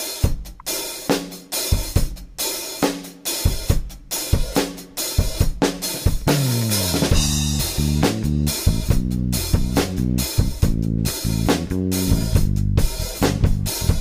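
A rock band's demo song starting: the drum kit plays alone with kick, snare, hi-hat and cymbals, then a pitched slide falls in pitch about six seconds in and bass and guitar come in with the drums.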